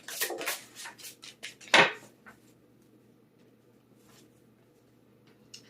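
Oracle cards being handled on a table: a quick run of clicks, slaps and rustles in the first two seconds, with one louder slap near the end of the run, then quiet.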